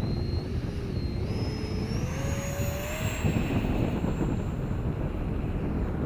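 Radio-controlled model jet's high whine rising in pitch in steps as it is throttled up for takeoff. About three seconds in, the lower part of the sound drops out and the whine carries on fainter, over steady wind buffeting the microphone.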